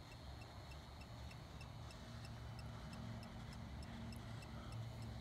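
Ghost-tracker app on a phone giving off a faint, even electronic ticking, about four ticks a second, over a low steady hum; a second low tone joins about two seconds in.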